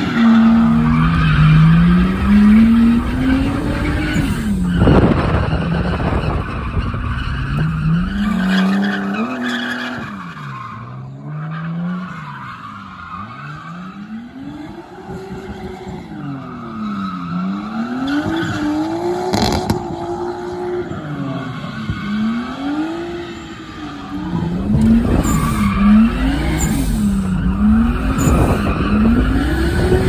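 Nissan Skyline R32 GTS-t's RB20DET turbocharged straight-six being driven hard through a drift, revs rising and falling every second or two over tyre squeal. It grows quieter for a stretch mid-way and loud again about 25 seconds in.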